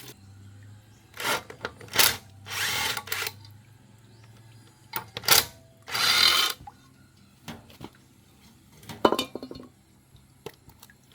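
A hand tool or power tool worked in several short bursts, each under a second long, followed by a few clicks and knocks near the end.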